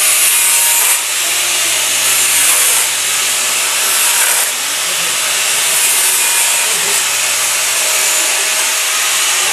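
Corded angle grinder running and grinding, a hissing rasp that surges several times in the first few seconds over a steady motor whine.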